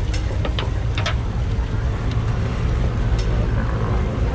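Steady low rumble of the gas burner under a row of rectangular tamagoyaki pans, with a few light clicks of chopsticks and a metal pan being handled, most of them in the first second or so.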